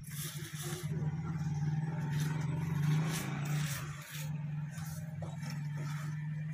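An engine running with a steady low hum that swells slightly near the middle and dips briefly about four seconds in, with faint scraping sounds over it.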